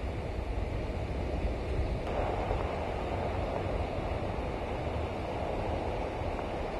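Steady outdoor noise of surf washing on a beach and wind on the microphone, with a low rumble underneath. The hiss of the surf grows fuller about two seconds in.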